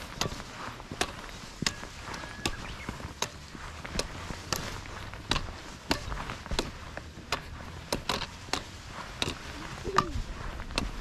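Footsteps of a hiker walking along a trail, sharp crunching steps at an even pace of about three steps every two seconds.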